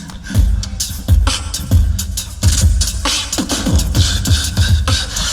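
Tag-team beatboxing on a live battle stage: deep vocal kick drums with a falling bass sweep, layered with sharp snare and hi-hat clicks in a steady driving rhythm.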